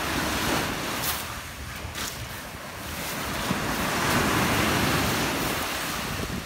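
Surf washing on the shore, a wave swelling up through the middle of the clip and easing off near the end, with wind buffeting the microphone.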